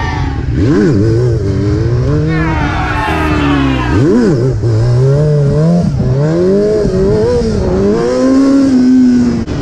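Sport motorcycle engine revving, its pitch swinging up and down as the throttle is rolled on and off, with quick sharp revs about a second in and again about four seconds in.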